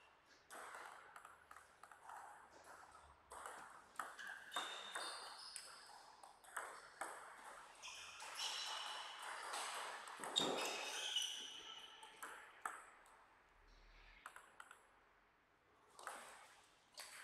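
Table tennis rally: the plastic ball clicking off bats and table at uneven spacing, with short high squeaks of shoes on the court floor. A heavier knock comes about ten seconds in.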